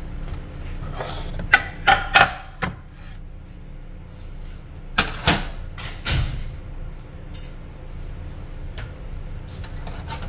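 Metal kitchen utensil knocking and clattering against a saucepan of mashed zucchini: a cluster of sharp knocks about a second and a half in, and a few more around five to six seconds in, over a steady low hum.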